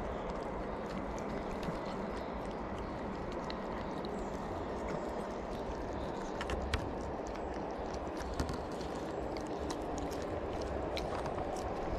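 Cats eating from plastic tubs close to the microphone: small crisp chewing and crunching clicks over a steady background hiss, with a couple of louder knocks past the middle.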